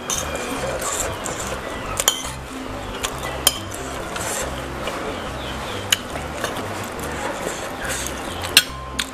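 Metal spoon scraping and clinking against a ceramic plate while scooping fried noodles, with several sharp clinks. Background music with a repeating bass line runs underneath.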